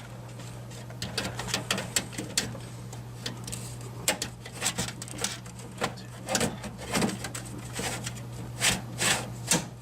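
Plastic hard-drive tray clicking and scraping as it is pushed into a tool-less drive bay of a PC case: an irregular run of sharp clicks and knocks, over a steady low electrical hum.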